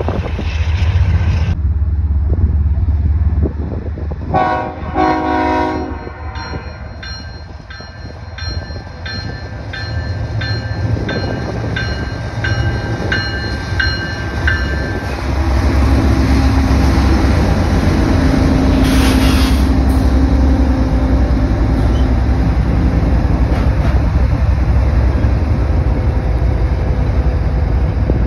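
Freight train passing at trackside. A diesel locomotive's horn sounds about four seconds in, a bell rings steadily for the next several seconds, and then a BNSF diesel locomotive passes close with a heavy low engine rumble, followed by double-stack container cars rolling by.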